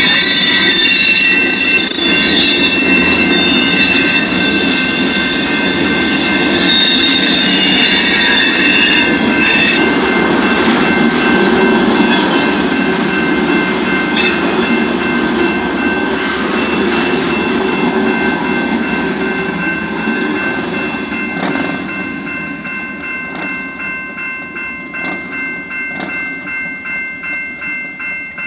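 Freight train of covered hopper cars rolling past a grade crossing, with high wheel squeal for about the first ten seconds over the rumble of the cars. The rumble fades about two-thirds of the way through as the end of the train passes, leaving the crossing's warning bell ringing in a steady rhythm.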